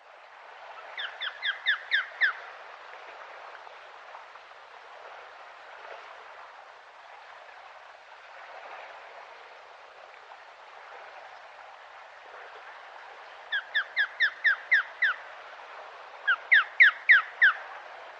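Osprey calling: three runs of six or seven short, sharp whistled notes, each note falling in pitch, over a steady background hiss.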